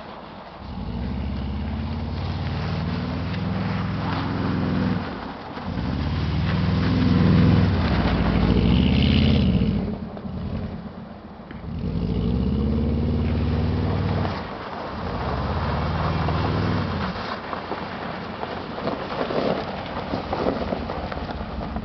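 Subaru 2.5-litre flat-four with unequal-length headers and an aftermarket 2.5-inch cat-back exhaust, revving hard in four long bursts as the car slides around on snow, the note dropping briefly between them. After about seventeen seconds it settles to quieter, lower running as the car rolls slowly by.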